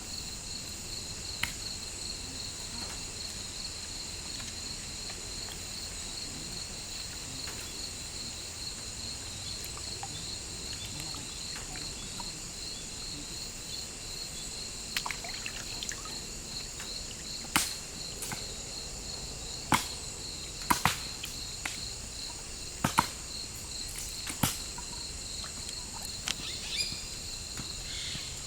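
Steady chorus of forest insects: a rapidly pulsing high drone with a higher, even hiss above it. From about halfway on, a dozen or so sharp, irregular knocks or cracks stand out above it.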